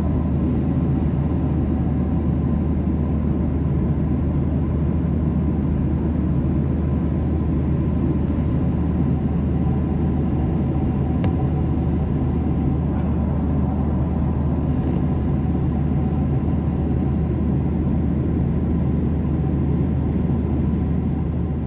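Steady cabin noise of a jet airliner in cruise, picked up by a phone's microphone: an even rush of engine and airflow noise with a low hum beneath and faint steady tones above.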